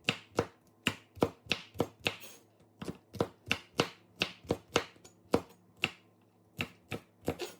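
Knife chopping long green beans into small pieces on a cutting board, a steady series of sharp cuts about three a second.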